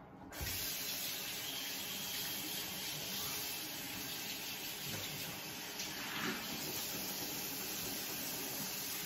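Bathroom sink faucet turned on about half a second in and running steadily into the basin.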